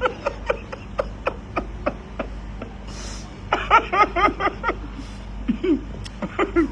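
A person laughing in short bursts of quick, evenly repeated syllables, with sharp clicks in between.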